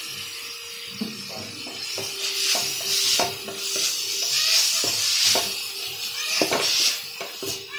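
Spatula stirring and scraping shredded chicken and onion stuffing in a hot pan, the mixture sizzling in the oil, with repeated scrapes and taps of the spatula against the pan.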